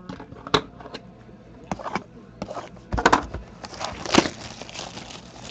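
Plastic shrink wrap being torn and crinkled off a sealed trading-card box, with small clicks and taps of the cardboard box being handled; the crackling grows busier and louder in the second half.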